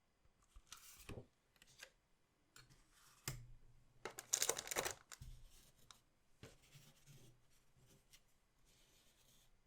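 Plastic wrapper of a collectible card pack crinkling and tearing as it is opened by hand, loudest in one burst about four seconds in, with a few light clicks and taps of card handling.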